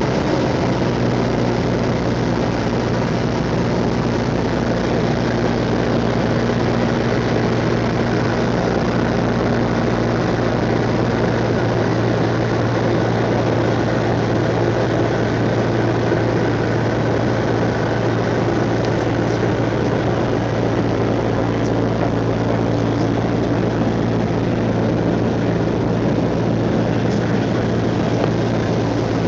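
Cessna 172's piston engine and propeller droning steadily at constant power, heard from inside the cabin.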